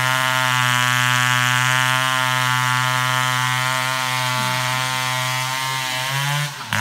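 Two-stroke chainsaw running steadily under load, cutting into a tree trunk. Near the end its pitch rises briefly, then it cuts off abruptly.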